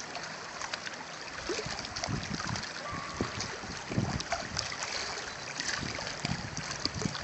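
Small lake waves lapping and washing around rocks at the shoreline, a steady soft watery wash, with occasional gusts of wind on the microphone.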